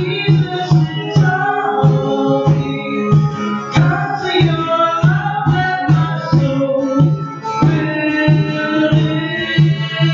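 Live music on acoustic guitar and a pair of conga drums, the congas keeping a steady beat of about three strokes a second.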